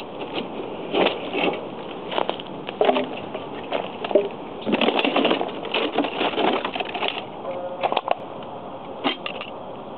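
Footsteps crunching and crackling unevenly over dry brush and littered ground. The densest crunching comes about five to seven seconds in.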